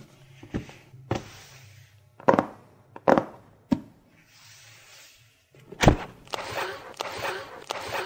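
Fingers tapping and rubbing on a cardboard shipping box: about half a dozen sharp taps and knocks, with stretches of brushing and scratching strokes between them, a rhythmic run of strokes near the end.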